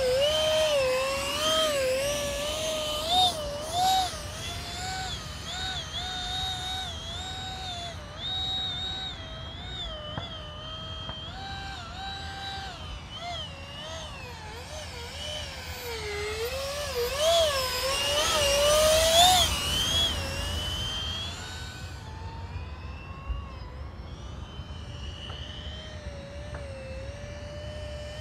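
64 mm electric ducted fan of a foam RC F-16 jet, driven by a brushless motor, whining in flight. Its pitch rises and falls with each throttle change. About two-thirds of the way in it grows louder, with a rush of noise, as the jet passes close.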